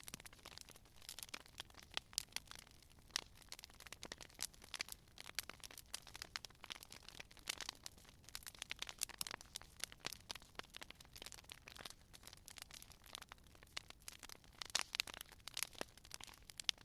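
Campfire crackling: burning wood giving off irregular snaps and pops, several each second, over a soft low hiss.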